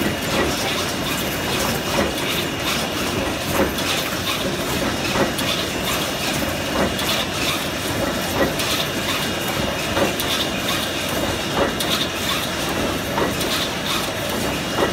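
Stainless steel wire mesh weaving looms running: a steady mechanical clatter with a stronger knock about every second and a half.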